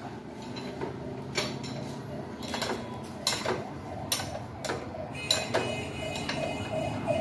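Irregular sharp metallic clicks and clinks, like hand tools knocking on metal parts. From about five seconds in, a faint tone wavers up and down like a siren.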